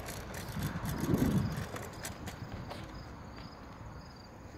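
Scooter rolling over fresh asphalt, a steady rumble from the wheels and the moving phone, swelling louder about a second in. A faint, steady high tone joins in after about two and a half seconds.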